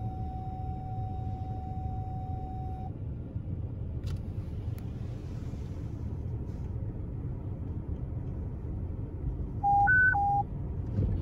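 Low engine and road rumble inside a moving Ford's cab, with a steady radio tone for about the first three seconds. Near the end the fire dispatch radio sounds a short three-note alert, low, high, low, the loudest thing heard.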